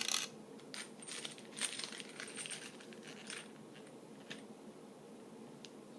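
Small metal nuts and machine screws clinking and rattling as they are handled and picked out of their pack: scattered light clicks, busiest about two seconds in.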